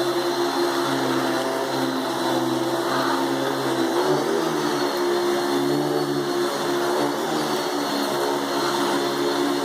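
Hoover Dimension 1000 12-amp canister vacuum cleaner running steadily with its power nozzle on carpet; the motor hum shifts slightly in pitch a few times as the nozzle is pushed back and forth.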